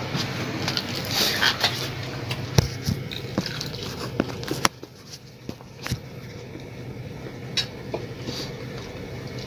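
Scattered clinks and knocks of spoons against plates and bowls as people eat, over a steady low hum.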